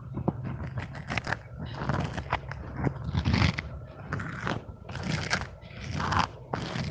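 Plastic fidget toys being handled close to the microphone: irregular sharp clicks mixed with short rustling, crinkling bursts.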